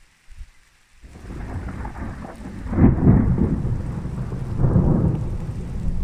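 Thunder rolling during a rainstorm: a low rumble starts about a second in and swells to two loud peaks, with rain falling underneath.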